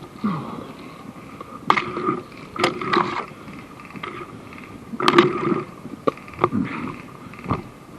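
A run of irregular knocks and scrapes, bunched about two and five seconds in, over a faint steady whine.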